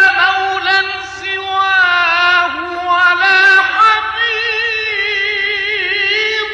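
A solo voice chanting an Arabic religious sung poem (an ibtihal or nasheed), stretching one syllable into a long, ornamented melisma with the pitch wavering and turning around a held note.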